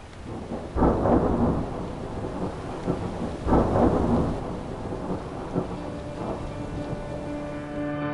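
Steady rain with two rolls of thunder, the first about a second in and the second about three and a half seconds in. Music begins to come in faintly near the end.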